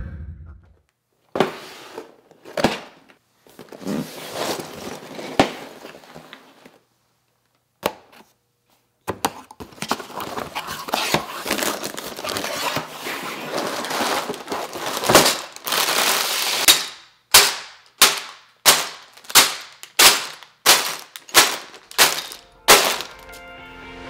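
A cardboard Lego set box being opened and handled: scattered knocks, then a long stretch of rustling. Near the end come about a dozen sharp clattering drops in quick succession, as sealed plastic bags of Lego pieces land on the tabletop one after another.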